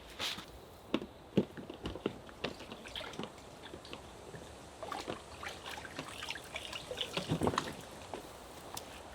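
Small irregular splashes and drips of water, with light knocks, busiest about seven seconds in.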